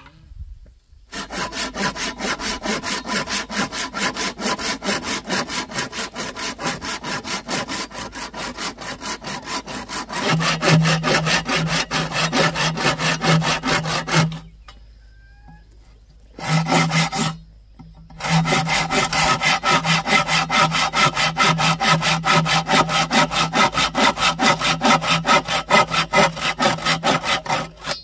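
Hand saw cutting through wood in steady, rapid back-and-forth strokes. It stops about halfway through, starts again briefly, pauses once more, then saws on steadily.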